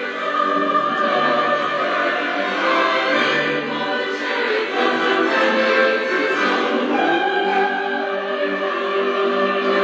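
Operatic choir singing over an orchestra, long held notes.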